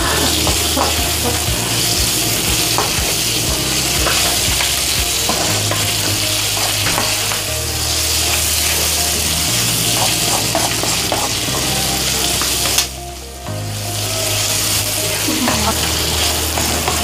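Boiled pork pieces sizzling in hot oil in a non-stick wok while a wooden spatula stirs and turns them, scraping and tapping the pan. The sizzle drops away for a moment about two-thirds of the way through.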